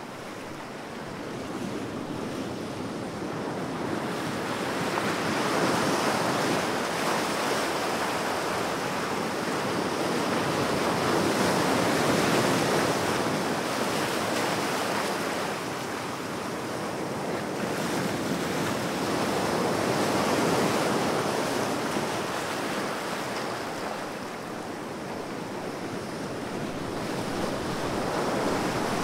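Ocean surf: waves washing in as a steady rush of water that swells and fades roughly every six to eight seconds.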